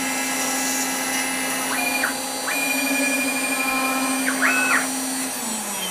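6040 CNC router running: the spindle holds a steady whine while the stepper motors whine through three quick traverses, one short, one long, one short, each rising and falling in pitch. Near the end the spindle spins down with a falling pitch.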